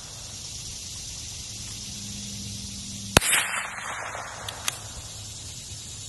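A single shot from a CZ 457 MTR .22 LR bolt-action rifle about three seconds in, with a short echo after it. Two faint clicks follow about a second and a half later.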